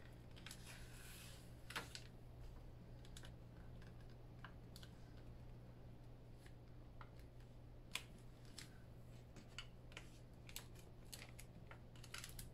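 Hands pressing and smoothing taped cardstock against a cutting mat: faint paper rustling and scattered light ticks and taps, over a steady low hum.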